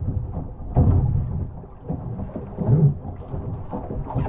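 Wind buffeting the microphone on a Sunfish sailboat under way, an uneven low rumble with louder gusts about a second in and again near three seconds, over water splashing against the hull.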